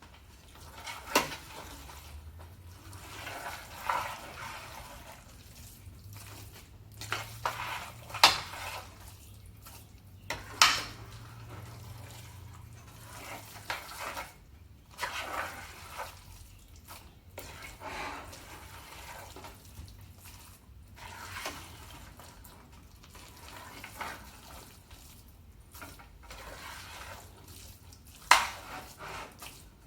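A utensil stirring and scraping fried rice around a pan, with irregular sharp knocks against the pan every second or few, loudest about a second in, around eight and ten seconds, and near the end.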